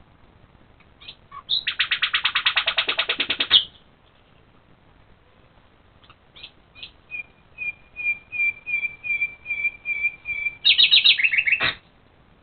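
A songbird singing at night. It gives a fast, loud trill, then a run of clear repeated whistled notes that grow louder, about three a second, and ends with another fast trill.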